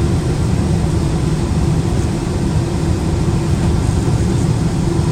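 Steady cabin noise inside a British Airways Boeing 777: the rumble of engines and airflow with a constant low hum.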